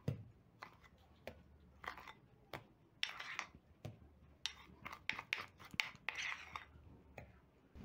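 A metal spoon scooping a thick cinnamon-sugar butter paste from a ceramic bowl and dabbing it onto dough: faint, irregular scrapes and clicks.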